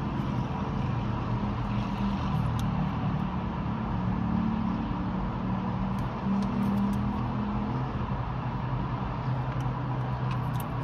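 Steady low hum of a car engine idling, heard from inside the cabin, with a few faint clicks from the plastic food pouch being handled.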